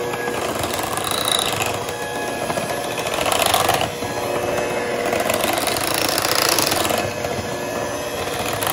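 KitchenAid electric hand mixer running steadily, its twin beaters whisking egg-yolk custard into mascarpone cheese in a glass bowl.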